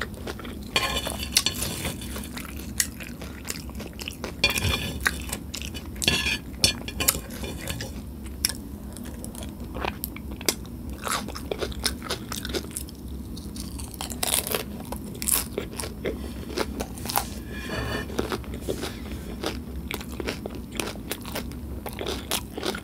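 Close-miked crunching and chewing of pieces of crunchy Nacho Cheese Doritos taco shell, in many short, irregular crunches.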